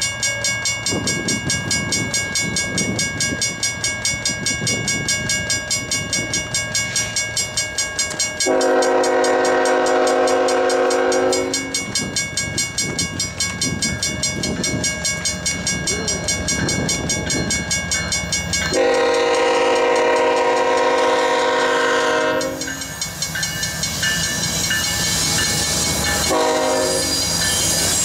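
A BNSF freight locomotive's air horn sounding chord blasts, long, long, then short, the grade-crossing signal, over a grade-crossing bell ringing about four times a second and the low rumble of the passing train.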